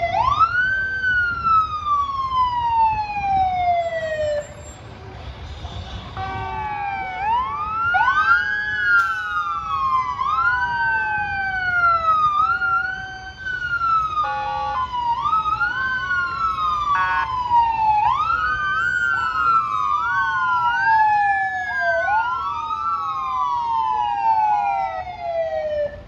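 Several fire engine sirens wailing at once, out of step. Each sweeps up quickly and slides slowly down over a few seconds. A short horn blast sounds about halfway through.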